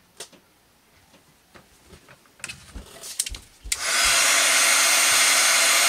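A few light clicks and taps of handling, then about four seconds in a handheld electric heat tool switches on and runs with a steady rush of blown air over a motor hum.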